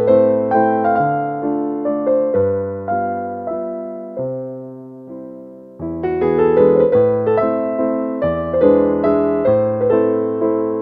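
Background music: piano playing a gentle melody with chords, thinning out and dying away in the middle before picking up again about six seconds in.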